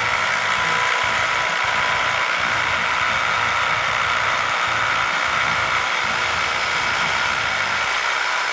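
Corded rotary hammers hammer-drilling into concrete slabs: a loud, steady rattling drone with a motor whine.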